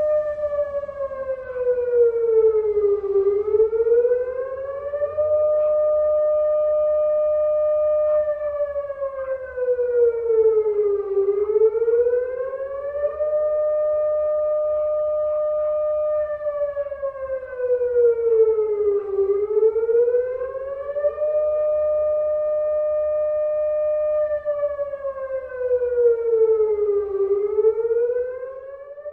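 Police siren wailing in slow cycles: the pitch holds high, slides down for about three seconds, then rises back, repeating roughly every eight seconds. It fades out at the end.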